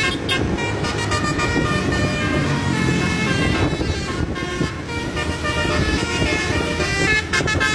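Bus basuri telolet horn playing a quick tune of stepped, held notes over a low engine rumble.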